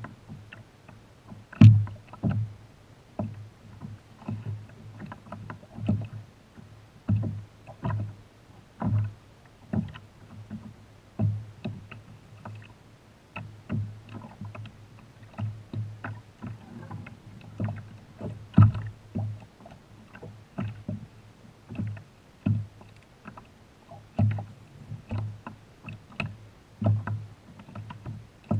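Small waves slapping against a kayak's hull, heard as irregular low hollow knocks, one or two a second, with a louder knock about two seconds in and another near nineteen seconds.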